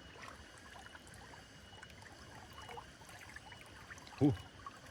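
A small river's water trickling faintly, with a short "ooh" from a man about four seconds in.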